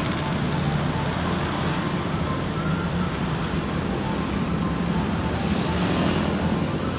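Steady road traffic along a city street: the running of vehicle engines and tyres, with one vehicle passing closer near the end.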